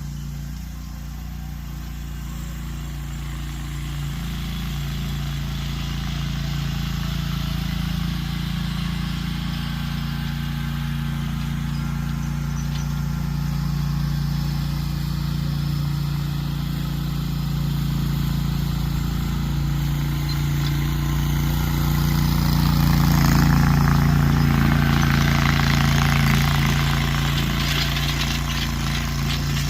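Garden tractor engine running steadily under load while pulling a disc harrow and chain drag through soil. It grows louder to a peak about three-quarters of the way through, when the clatter and scrape of the implement come up with it, then eases off slightly.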